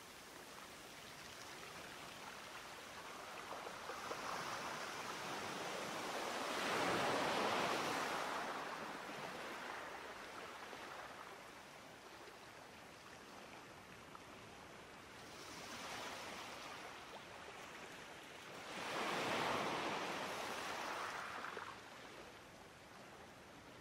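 Sea waves washing ashore: a continuous wash of surf that swells into two larger surges, about seven seconds in and again near twenty seconds, each building and falling away over a few seconds.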